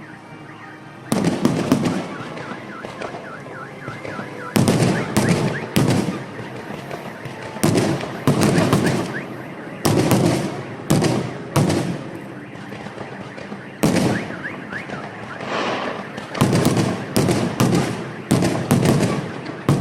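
Fireworks bursting: a long run of loud bangs, often several in quick succession, each echoing briefly. Underneath, a car alarm wails with a repeating rise-and-fall tone.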